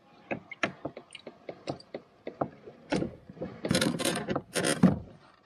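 Minn Kota trolling motor being lowered back into the water through a kayak's motor well, with a run of small clicks and knocks from the mount. About three and a half seconds in come louder scraping bursts as the motor slides down into place.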